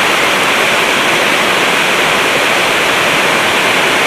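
Steady, loud rushing hiss with no breaks.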